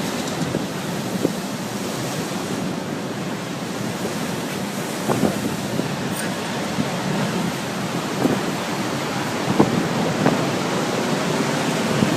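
Storm wind rushing steadily across the microphone, with a few brief thumps of gusts through the middle and later part.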